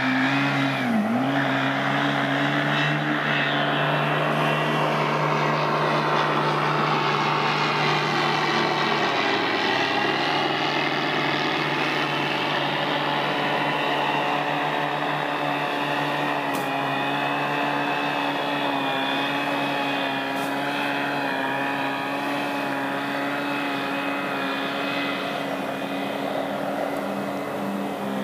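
The MPX light aircraft's 235 hp piston engine and propeller droning steadily as it flies past. The pitch wavers slowly and the sound eases off slightly near the end.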